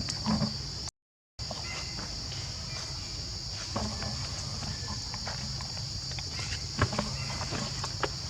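Steady high-pitched chorus of insects buzzing, with scattered small clicks and taps. The sound cuts out completely for about half a second about a second in.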